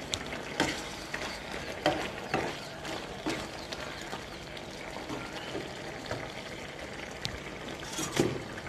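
Vegetable curry simmering in a wok-shaped pan with a steady bubbling hiss, while a slotted wooden spatula stirs and lifts the vegetables to check they are cooked through, knocking and scraping against the pan several times.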